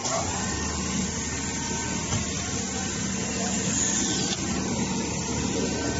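Richpeace large-format automatic sewing machine running, a steady mechanical hum.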